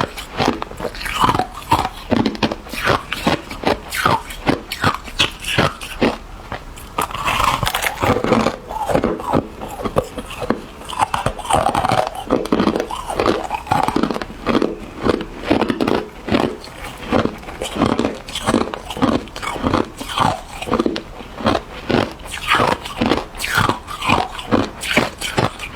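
Hard ice being bitten and chewed: a continuous run of sharp crunches, about three a second.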